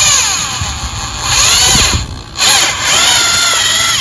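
Electric drill turning a paddle mixer through thinset mortar, its motor whine rising and falling in pitch as the trigger is eased on and off for a slow mix. It cuts out briefly about two seconds in.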